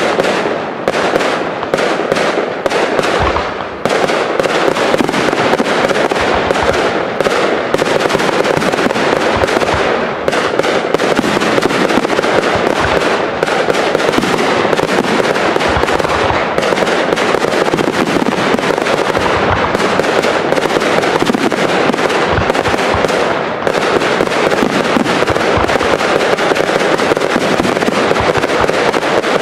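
Aerial fireworks shells bursting in a dense, unbroken barrage: many overlapping bangs with continuous crackling between them.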